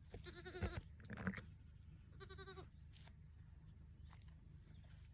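Newborn lamb bleating twice, short high quavering calls, the first just after the start and the second about two seconds in. A brief low thump falls between them.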